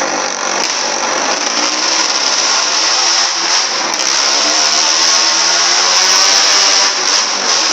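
Motorcycle engine running and revving as it is ridden round the wooden wall-of-death drum, the pitch wavering up and down.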